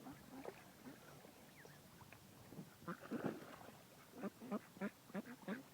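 Ducks quacking: a string of short quacks, most of them in the second half.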